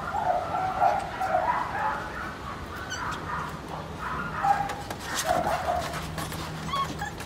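A pen of young dachshund puppies whining and yipping, several at once, in short overlapping high cries.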